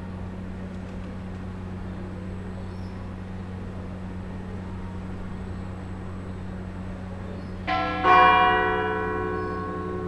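Church bell struck twice in quick succession near the end, its tones ringing on and slowly fading, over a steady low hum.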